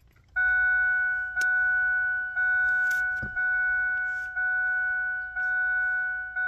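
2004 Ford Expedition's dashboard warning chime sounding with the key in the ignition: one steady tone, re-struck about once a second. A short knock and a jingle of keys come about three seconds in.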